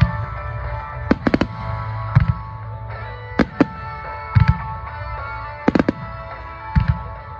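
Aerial fireworks bursting over music with long held tones: sharp cracks, some in quick runs of two or three, and deep booms about every two seconds.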